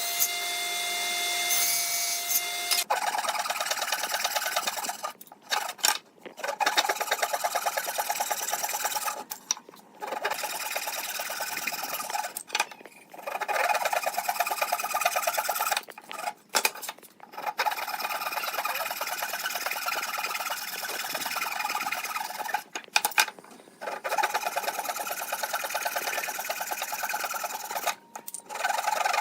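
A tool working wood, sawing or rasping, in steady runs of a few seconds broken by short pauses.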